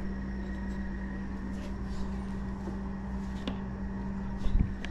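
Steady low electrical hum, with a few faint clicks and a low knock near the end as tools are handled during a search for sockets.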